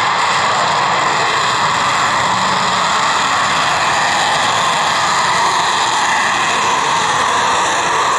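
Twin turbofan engines of a MiG-29M2 fighter at full afterburner during its takeoff roll, a loud steady jet noise that holds without a break.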